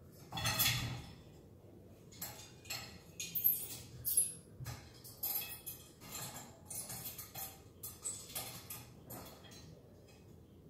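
A cat's claws and paws scraping and clicking on the rungs and rails of an aluminium Gorilla ladder as it climbs down, in a string of irregular scrapes and knocks, the loudest near the start.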